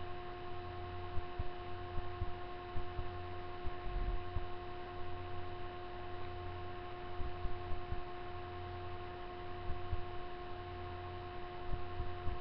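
Steady electrical hum with a few faint steady tones above it, and scattered soft low bumps.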